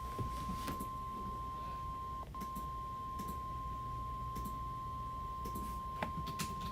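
Weather radio emergency alert tone: one steady high single-pitched tone, the NOAA Weather Radio 1050 Hz attention signal that comes before a tornado warning. It drops out briefly about two seconds in and cuts off near the end.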